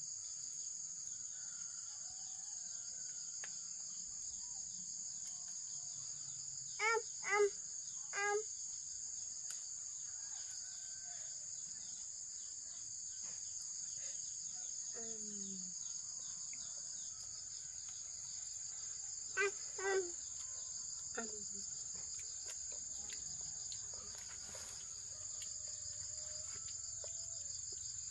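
A steady, high-pitched chorus of insects shrilling without a break. A few short calls break through about seven seconds in, and again around twenty seconds.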